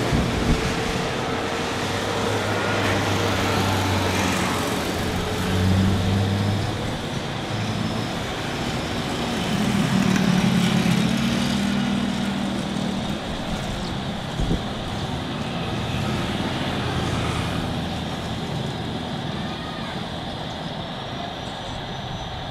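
Airbus A330 airliner's jet engines running at low taxi power, a steady rumble with a low hum that swells and shifts, over airport background noise.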